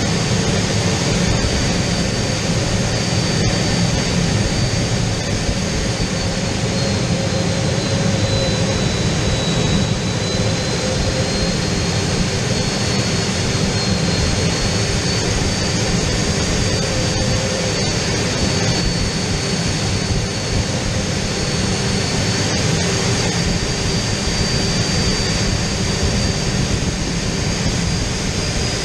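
Aero L-29 Delfín's Motorlet M-701 turbojet running steadily in flight, heard inside the cockpit as a constant rush of engine and airflow noise. A thin high turbine whine rides on top, sagging slightly in pitch partway through and then coming back up.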